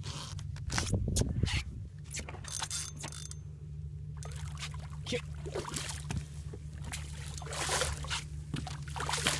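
Hooked redfish (red drum) splashing and thrashing at the water's surface beside a boat, in short bursts of splashing over a steady low hum.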